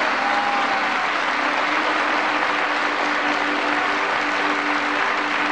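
A large audience applauding steadily, a dense even clatter of many hands clapping.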